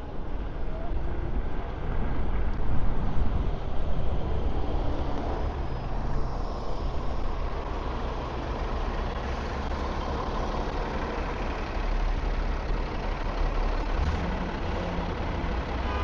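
Wind rush and road noise picked up by a clip-on microphone with a windproof cover while riding an electric scooter in traffic, louder a couple of seconds in.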